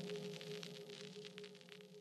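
Faint ambient background music with held low tones and a crackling shimmer, fading out.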